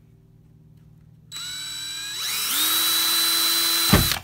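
Cordless drill boring a hole through the plastic housing of an LED light: the motor starts about a second in with a whine, speeds up to a higher steady whine, then gives a thump just before it stops near the end.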